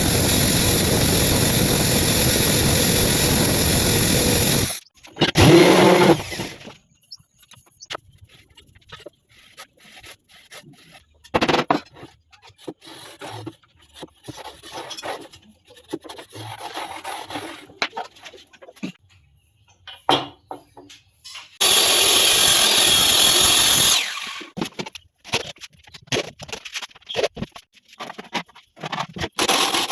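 A power tool running in loud, steady spells of a few seconds, the longest at the start and another about two-thirds of the way through. Between the spells come short, quieter scraping and knocking sounds of work on the piece.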